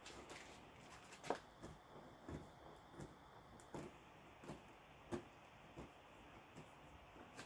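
Faint, irregular clicks and taps of hands working a plastic window weatherstrip trim piece into place, with one sharper knock about a second in.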